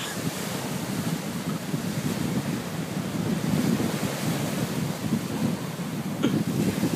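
Wind buffeting the microphone over small waves breaking and washing along the shore, rising and falling in gusts.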